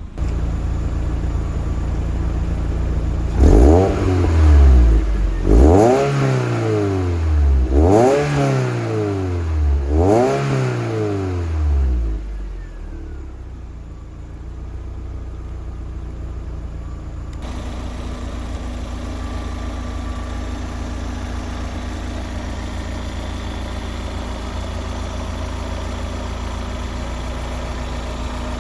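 Toyota MR2 SW20's 3S-GE four-cylinder engine breathing through a Fujitsubo aftermarket muffler: it idles, is revved four times about two seconds apart, each rev rising and dropping back, then settles to a steady idle.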